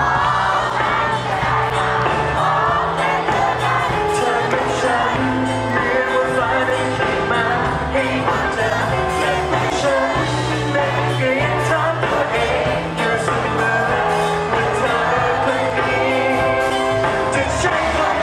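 A male singer sings a pop-rock song live into a handheld microphone, backed by a live band with bass and electric guitars, heard through the concert sound system.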